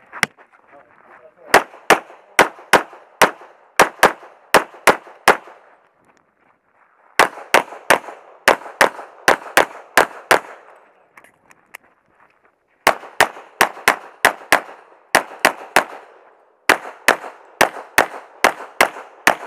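Glock 35 .40 S&W pistol firing fast strings of shots with major-power-factor 180-grain loads. The shots come in four bursts of about ten, with short pauses between the bursts, and each shot trails off in an echo.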